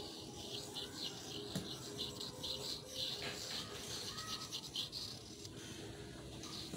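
A batik canting's metal spout scratching over bare wood in quick, irregular short strokes as wax lines are drawn, a rapid scratchy rasping.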